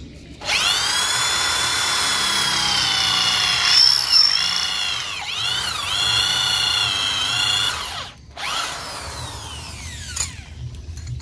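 Corded Ryu RID13-1RE 600 W impact drill in plain drill mode, its motor whining at high speed as an 8 mm bit bores through a steel plate. The pitch dips a few times as the bit bites under load. About eight seconds in it stops, gives a short blip, and spins down with a falling whine.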